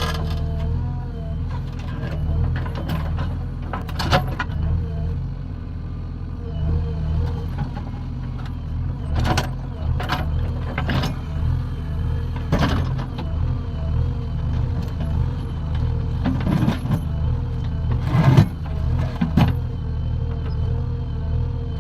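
Diesel engine of a JCB 3DX backhoe loader running steadily while digging, with sharp metallic clanks and knocks, likely the bucket and linkage striking stone and rattling. The clanks come in several scattered hits, with a cluster in the middle and another toward the end.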